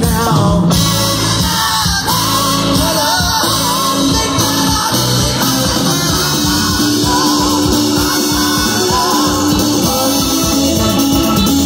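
Live blues-rock band playing: a singer over electric guitar and a steady beat.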